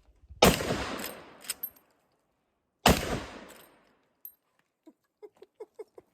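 Two shots from a Henry lever-action .45-70 rifle, about two and a half seconds apart, each dying away slowly over about a second, followed near the end by a run of small light clicks.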